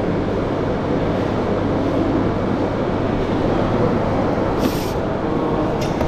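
Steady low hum and rumble of running machinery, with a brief faint hiss near the end.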